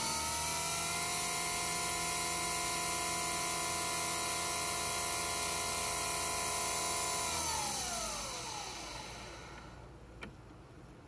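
Nespresso Vertuo coffee machine brewing, its capsule spinning with a steady high motor whine. About eight seconds in the whine winds down in pitch and fades as the brew ends, and a single click follows near the end.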